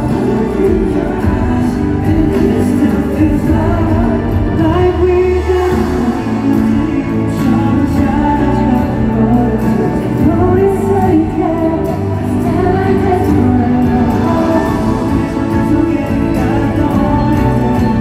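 Male voices singing a pop ballad live over a backing track, heard through a large arena's sound system from the audience.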